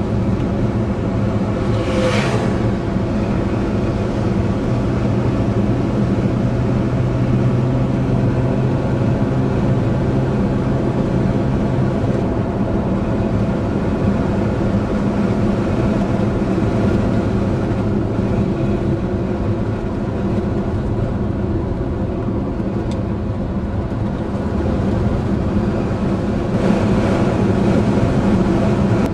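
Car driving at a steady speed: a steady engine hum with tyre and road noise. About two seconds in there is a short whoosh as an oncoming car passes.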